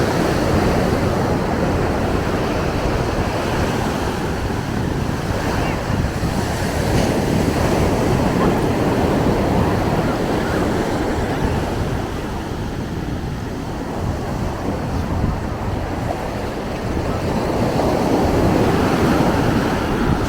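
Ocean surf breaking and washing up the beach, swelling and easing, with wind buffeting the microphone.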